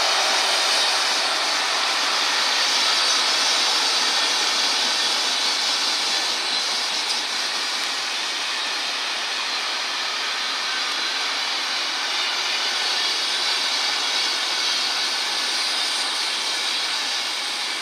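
Freight train of flat wagons rolling past at speed: a steady rushing noise of wheels on rail that eases slightly as the train goes by.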